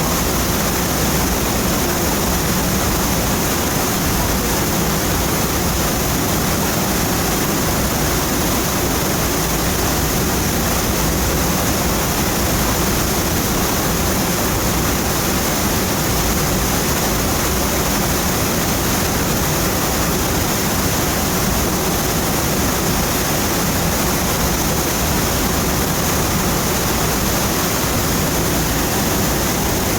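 Donut Falls waterfall: water pouring steadily with an unbroken rushing noise.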